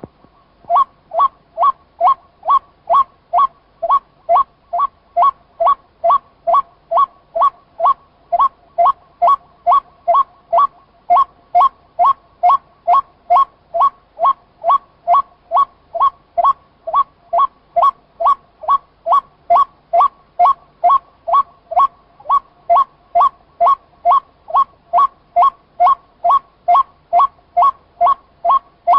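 White-breasted waterhen giving its monotonous repeated call, a short two-pitched note about twice a second, steady and unbroken.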